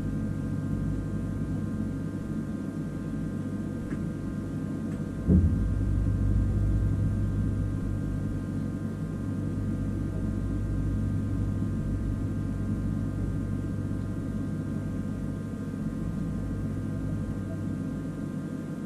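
Steady electrical hum of a stationary Siemens Desiro ML (AM08) electric train with several steady tones, heard from its cab. About five seconds in there is a single sharp knock, after which the low hum grows louder for a few seconds.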